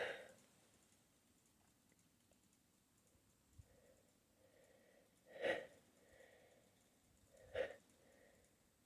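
A person sniffing sharply twice, about two seconds apart, with faint breathing in between, while fighting a sneeze tickle.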